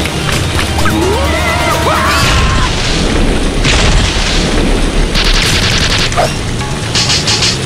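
Cartoon soundtrack of music, with squeaky wordless character voices gliding up and down in the first couple of seconds. Heavy low booming sound effects follow, then hissing and quick rattling effects near the end.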